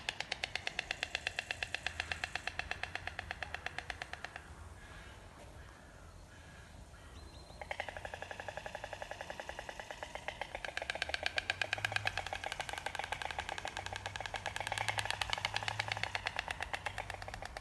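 White storks clattering their bills: fast rattles of about ten clacks a second, in long bouts. The clatter fades about four seconds in and resumes louder a few seconds later.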